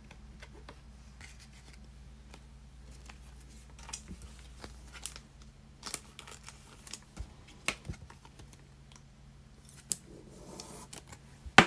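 Trading cards and foil packs being handled: scattered small clicks and rustles as cards are flipped through, over a faint steady low hum, ending in a loud sharp snap.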